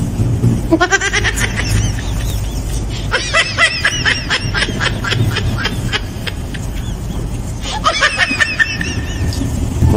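Laughter in three short spells of quick "ha-ha" bursts, over a steady low hum.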